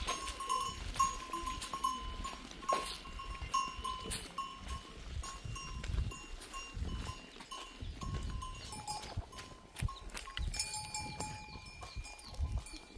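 A bell hung on livestock ringing over and over as the animal moves, a clear metallic ring. A second, lower-pitched bell rings near the end.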